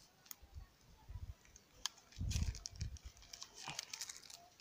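Clear plastic grafting tape crinkling and crackling in short bursts as it is wrapped and pulled tight around a tree trunk to bind a bridge graft, with a brief low thud a little past two seconds in.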